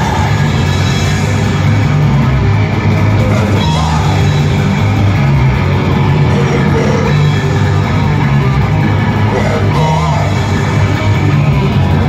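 Live heavy metal band playing loud and steady, with distorted electric guitars, bass and drums.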